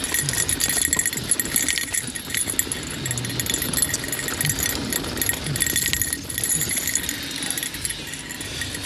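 Mountain bike clattering down a rock garden: tyres knocking over rocks, with a steady metallic rattle and jingle from chain and bike parts and a run of sharp knocks throughout.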